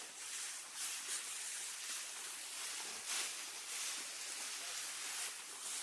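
Tall grass rustling in a few soft swishes as someone pushes through it, over a steady faint outdoor hiss.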